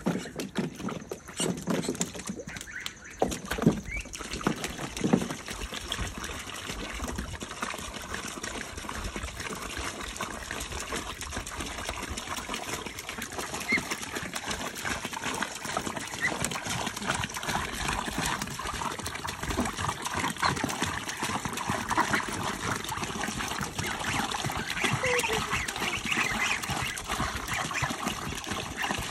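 Water splashing in a plastic kiddie pool for the first few seconds, then a steady pour of water from a garden hose into the pool. Ducklings and goslings peep now and then over it.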